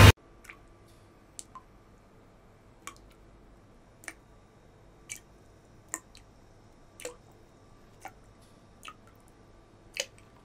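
Water dripping: single drops fall about once a second, each a short click with a brief pitched tail. Loud music cuts off suddenly at the very start.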